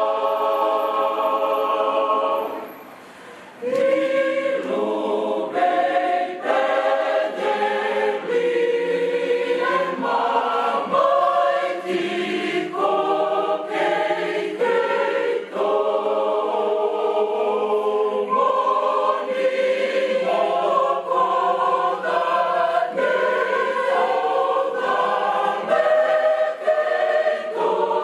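Church choir singing a Christmas carol in parts, unaccompanied. A held chord ends about two seconds in, and after a short pause the choir comes in again with a new phrase.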